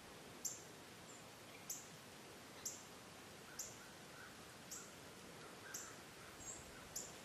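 A small bird in the woods giving sharp, high chip notes, repeated about once a second, over a faint outdoor background.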